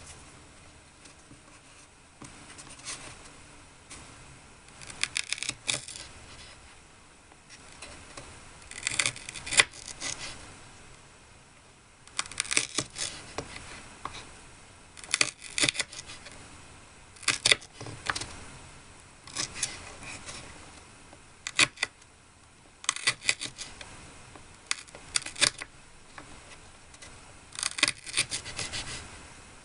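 Light clicks, taps and scrapes of small objects or utensils being handled, in short clusters every two to three seconds.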